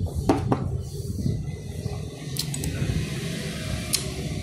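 A few sharp clicks on a laptop, two close together near the start and fainter ticks later, over a low steady hum.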